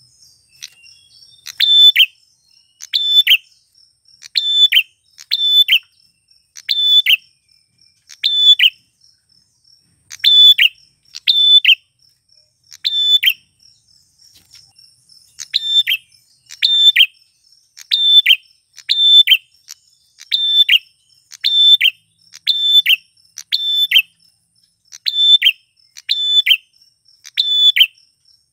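Male prinia (prenjak klawu) calling, repeating a loud, sharp, short note about once a second, with a pause of about two seconds midway. A faint steady high insect tone runs underneath.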